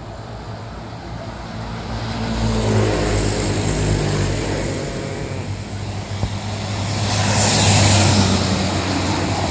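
Heavy diesel vehicles passing close by on the road: engine sound swells as one goes past about three seconds in, then a louder pass-by with a rush of tyre and air noise peaks near the end.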